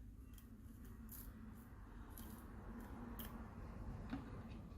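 Faint scraping with a few light clicks, about one a second, from a small repair tool working on the inside of an opened smartphone at its vibration motor.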